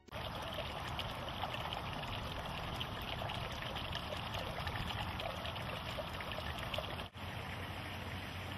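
Steady rushing outdoor background noise with no animal call in it. It drops out for an instant about seven seconds in, at a cut between shots, then carries on slightly quieter.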